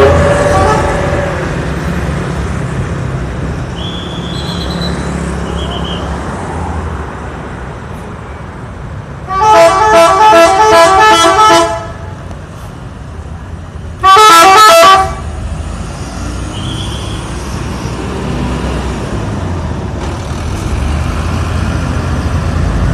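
Multi-tone 'telolet' air horn of an Indonesian intercity bus playing a quick run of short notes for about two seconds, then a second, shorter burst of notes a couple of seconds later. Under it is a low engine and traffic rumble, loudest at the start.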